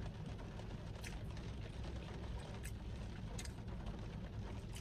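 Plastic fork clicking and scraping against a plastic takeout tray while cutting pancakes: a few sharp, separate clicks over a steady low rumble in a car cabin.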